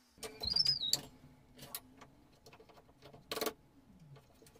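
Wooden blocks and a clamp knocked against the mitre saw's table and fence while a stop block is set up: a cluster of sharp clacks with a brief high squeak in the first second, then a single knock about three and a half seconds in.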